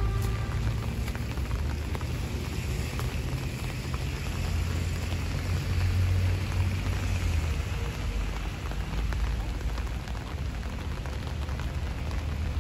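Steady light rain pattering on wet ground and leaves, over a low rumble underneath.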